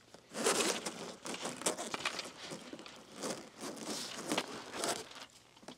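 Irregular rustling and crinkling handling noise in uneven bursts, dying away about five seconds in.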